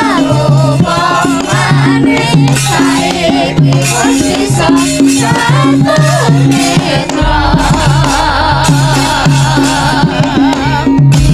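Female sindhen singers singing a Javanese song over band accompaniment with a regular drum beat; a low steady bass note comes in about seven seconds in.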